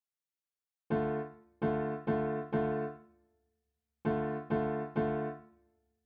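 Short three-note chord stabs from a software piano/keyboard instrument in FL Studio's piano roll, each ringing down: four chords in quick succession, a pause, then three more.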